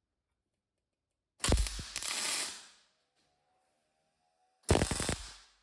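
Two short bursts of scraping and clicking as metal and brick parts of a gas forge are slid and handled, about three seconds apart.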